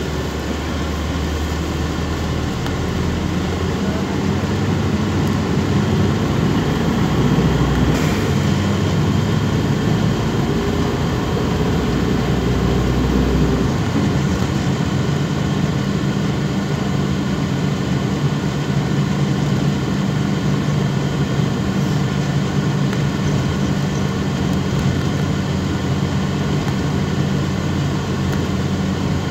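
MAZ-206 city bus heard from inside the cabin while driving: steady diesel engine noise with road rumble. The engine note changes about eight seconds in and again about fourteen seconds in.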